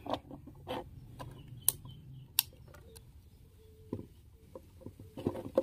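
Irregular small clicks and taps as the spring-clip speaker terminals on a small amplifier are pressed open and bare wire ends are pushed in, with light handling of its plastic case.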